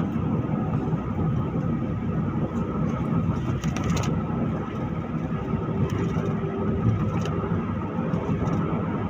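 Steady road and engine drone heard inside a moving vehicle at highway speed, with a faint steady whine above it and a few light ticks and rattles.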